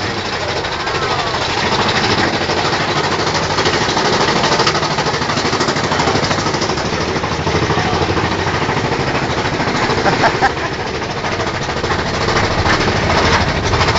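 Mine-train roller coaster cars rattling and clattering over the track in a dense, rapid clatter.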